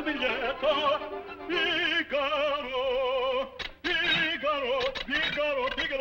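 Male operatic voice singing sustained notes with a wide, wobbling vibrato. It breaks off briefly a little past halfway, then carries on.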